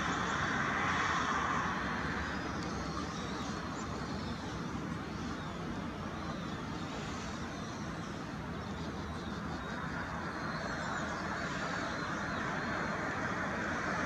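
Steady hum of distant traffic and city noise, with a few faint, high chirping calls.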